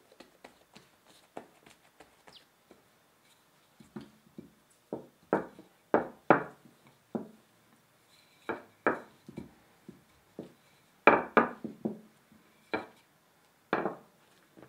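Wooden rolling pin rolling out bagel dough on a silicone baking mat, with a string of short, uneven knocks and rubs, a few of them louder near the middle and again later.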